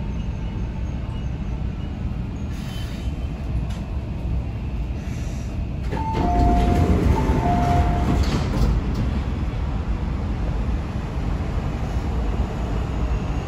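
Metro train interior at a station stop: steady low running and brake rumble. About halfway a burst of louder noise comes in, with a two-tone chime sounding twice, followed by the passenger doors sliding open.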